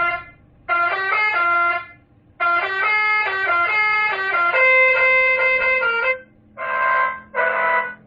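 60-watt telolet Basuri horn module playing its multi-tone horn melody: three short phrases of stepping notes with brief gaps, the last ending on a held chord, then two short, rougher blasts near the end.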